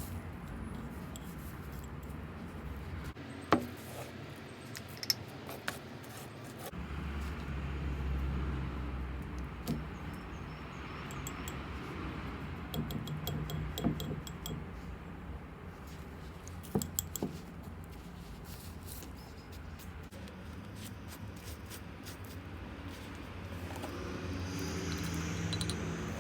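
Scattered small clicks, clinks and knocks of objects being handled, over a low steady rumble.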